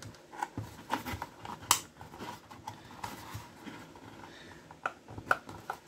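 Plastic toy housing being pried apart along its clipped seam: scattered sharp clicks and snaps of the plastic over quiet handling rustle, the loudest snap just under two seconds in and another pair near the end.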